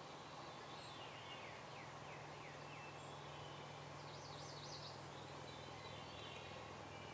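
Faint songbirds singing over a steady low hum in a quiet field: a run of about six falling notes about a second in, then a quick up-and-down warble around the middle, with a few thin high chirps.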